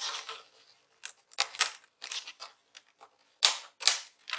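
Plastic keyboard cover strip of a laptop being pried up by hand, its clips snapping loose in a string of sharp, irregular clicks and crackles, loudest about three and a half seconds in.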